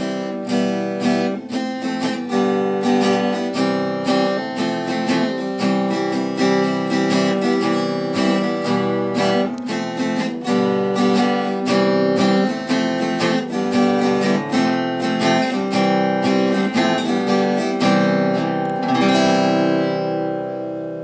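Background music on acoustic guitar: chords strummed in a steady rhythm, the last chord left ringing near the end.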